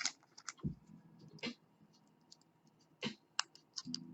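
Scattered small metallic clicks and ticks of tweezers and pins against a KABA Gemini lock cylinder, as loose driver pins are worked back into their holes.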